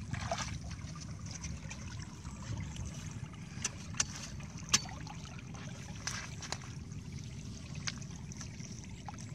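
Shallow water trickling through a fish trap in a flooded field channel, over a low steady rumble, with a few sharp clicks about halfway through.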